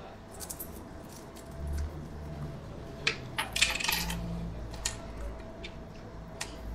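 Loose coins clinking and sliding on a wooden tabletop as they are handled, with a quick run of clinks about halfway through and single clicks around it.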